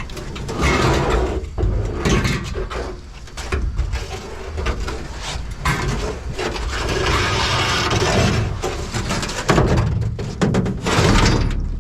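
Scrap being handled and loaded: irregular clattering knocks and scraping over a steady low rumble.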